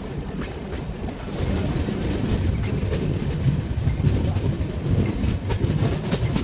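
Passenger train running on the rails, heard from a seat in the coach: a steady low rumble of the wheels with scattered clicks over the rail joints, getting louder about a second and a half in.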